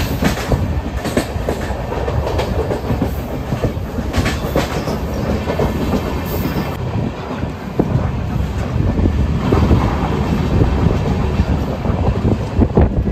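Passenger train running, heard from aboard a carriage: a steady rumble with irregular knocks of the wheels on the track.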